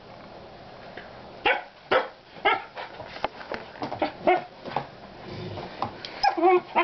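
Alaskan Malamute puppy barking and yipping: a string of short, pitched calls, sometimes two or three close together.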